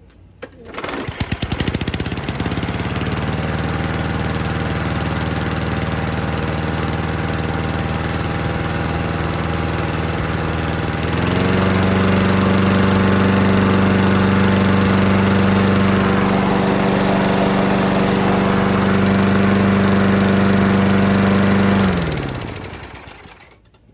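Vintage Toro lawn mower's small petrol engine pull-started, catching within about a second and running steadily. About eleven seconds in it speeds up to a louder, higher pitch, then it shuts off near the end and winds down. It starts and runs with a repaired pull cord.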